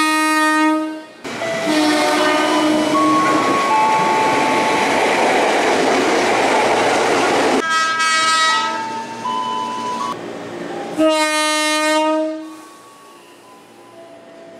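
KRL Commuter Line electric train horn sounding several blasts: a short one at the start, another around eight seconds in and a longer, louder one near the end. Between the first blasts comes the loud rush of the train going by.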